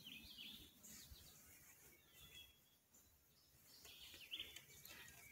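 Near-silent woodland: a few faint bird chirps, about three short clusters, over a faint low rumble that the listeners take for a distant jet.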